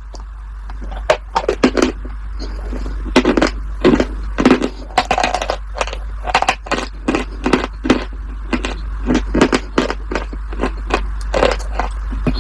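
Someone biting and chewing crunchy food: loud, irregular crunches, often in quick clusters, over a steady low hum.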